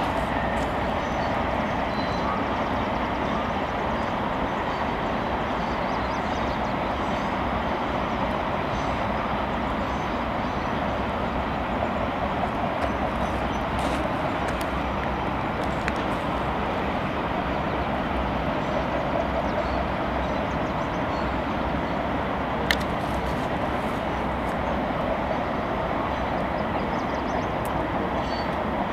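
Freight train cars rolling past, a steady even noise of wheels on rail with no engine sound standing out. One sharp click about three-quarters of the way through.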